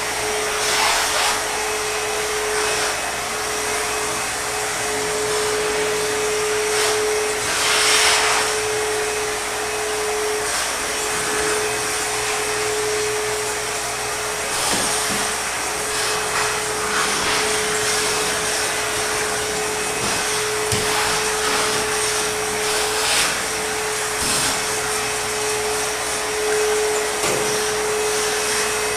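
ProTeam backpack vacuum running steadily with a constant motor whine, its suction hiss swelling in brief surges every few seconds.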